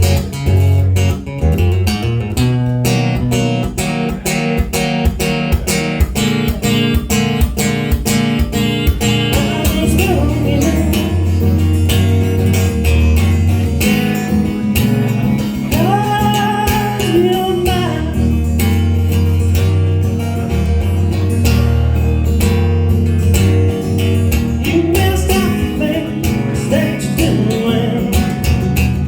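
Live music: a guitar strumming steadily over a low bass line, with a voice singing in the middle and again near the end.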